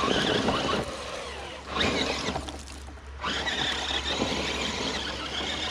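Electric motor and gearbox of a radio-controlled scale rock crawler, whining as it crawls over rough ground. The whine drops out briefly about halfway through.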